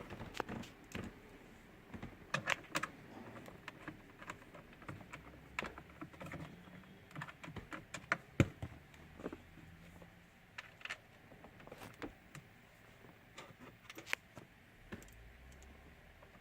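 Faint, irregular light clicks and knocks of plastic trim being handled and pressed: steering column covers being fitted and snapped back into place, with one sharper click about halfway through.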